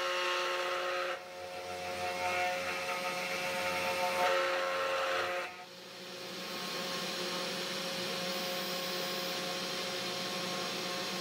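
CNC 3018 Pro Max spindle motor running with a steady whine while its 2.5 mm two-flute end mill cuts acrylic plastic, adding a coarse cutting noise on top, with a brief dip about a second in. Just under six seconds in the cutting noise stops and only the running spindle is left.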